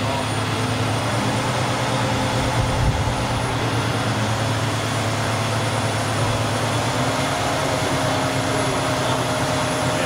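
Truck engine running steadily: a constant low drone with no change in speed.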